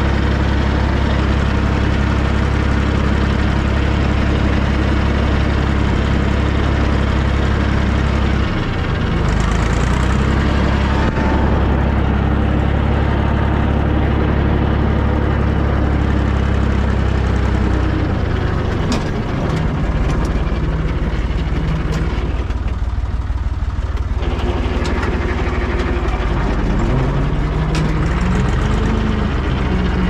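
Ursus C-360 3P tractor's four-cylinder diesel engine running steadily under load while pulling a mounted boom sprayer. Its pitch shifts about a third of the way in and again past the middle, and rises and falls in the last few seconds.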